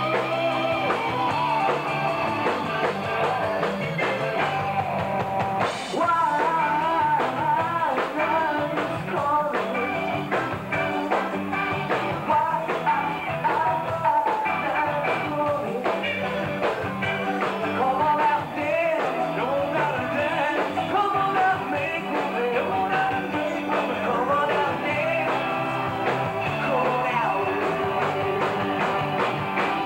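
Live rock band playing: electric guitar, bass guitar and drum kit, with a singer's vocals coming in about six seconds in and carrying on over the band.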